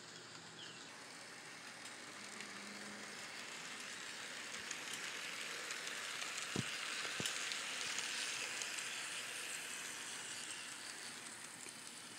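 N scale model train running along the track, a faint whirring rattle that swells as the train passes close by and then fades. Two sharp clicks come a little over halfway through.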